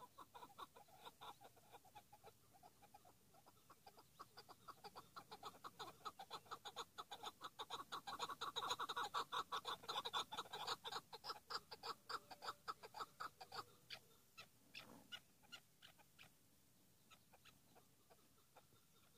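Chukar partridge calling: a long run of rapid clucking notes that grows louder to a peak around the middle, then fades into a few scattered notes near the end.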